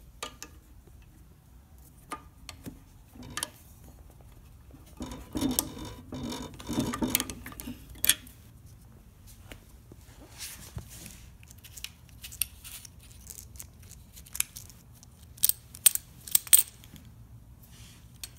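A metal key and an Abloy DiskLock padlock clinking and clicking as they are handled, with a stretch of rustling handling noise midway and a quick run of sharp metallic clicks near the end.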